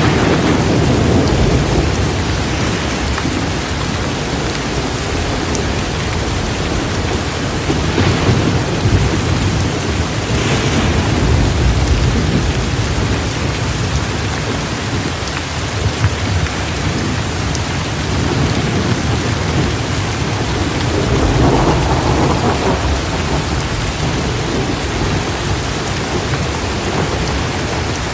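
Heavy rain pouring steadily with rolling thunder rumbling underneath, swelling louder a few times.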